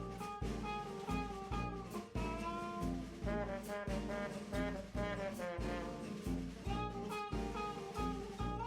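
Jazzy instrumental background music with a steady beat and a melody over it.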